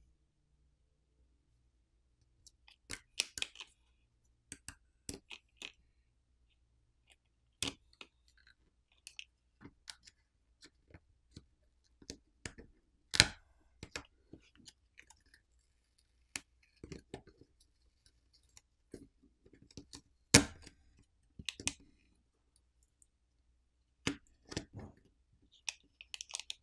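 Scattered small clicks, taps and scratching of fingers and metal tweezers handling a smartphone's opened internals as adhesive-backed flex cables are peeled off the frame. The sharpest click comes about twenty seconds in.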